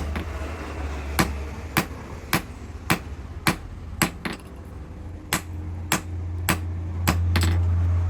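Hammer blows on metal at a steady pace, roughly one strike every half second, the forging strokes of a blacksmith shaping an axe. A low steady hum runs underneath and swells louder near the end.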